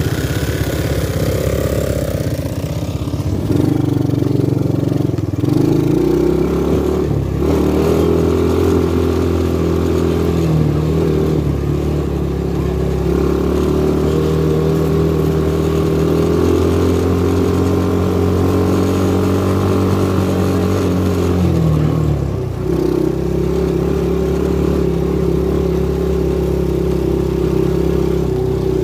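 ATV engine running under a rider, its pitch stepping up and down a few times in the first several seconds, then holding steady, with a brief dip a little over three quarters of the way through.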